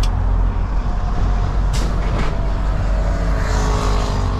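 Semi-truck engine running steadily, heard from the cab, with a faint falling whine as the truck slows. There are two short, sharp air hisses about two seconds in.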